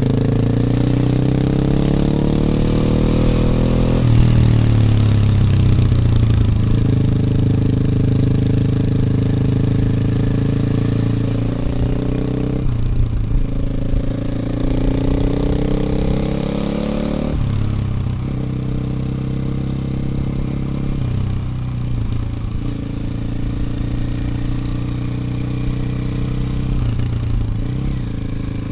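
KTM 450 EXC supermoto's single-cylinder four-stroke engine pulling through the gears under throttle. The pitch rises, then drops sharply at a gear change about four seconds in. It climbs again and drops once more a little past the middle, then runs lower and steadier near the end.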